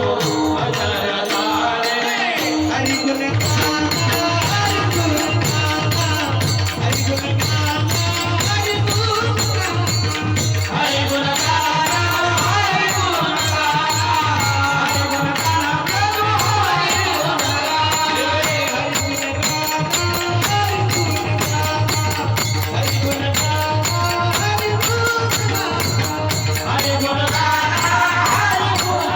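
Varkari bhajan: a man singing a devotional melody over a steady beat of small hand cymbals and mridang drum.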